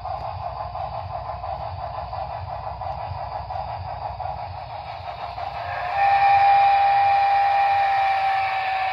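Broadway Limited Imports (BLI) model cab-forward steam locomotive's onboard sound system playing steady chuffing. About six seconds in, a loud, long steam-whistle blast starts, holds, and sags slightly in pitch near the end.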